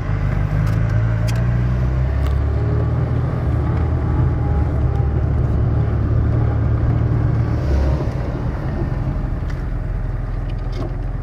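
Fiat Uno 60S's 1.1-litre four-cylinder petrol engine running as the car drives, a steady low engine hum heard from inside the cabin. About eight seconds in, the engine note drops and eases off.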